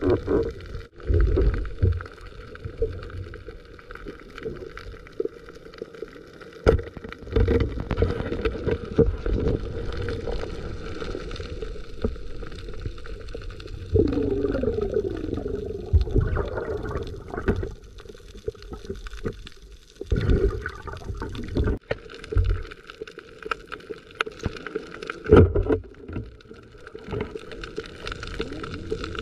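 Muffled underwater noise heard through a submerged action camera: water swishing and gurgling as the spearfisher swims, with irregular knocks and low thumps and a brief wavering tone about halfway through.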